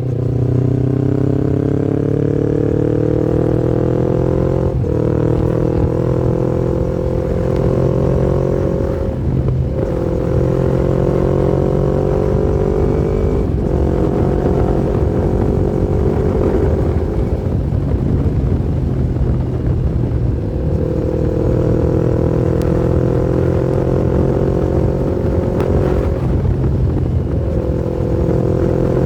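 Yamaha MT-25's parallel-twin engine running steadily under way. Its note climbs over the first few seconds, then dips briefly every four or so seconds before holding steady again.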